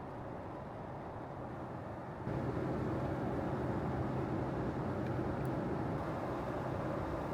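Steady cabin noise of a Boeing 777-200ER in cruise: an even rush of engine and airflow. About two seconds in it jumps louder and fuller, with a low hum coming up, and then holds steady.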